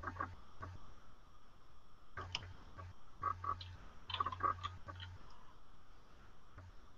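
Faint, irregular computer mouse clicks as an on-screen selection is removed and a text cursor placed, over a low electrical hum that cuts in and out.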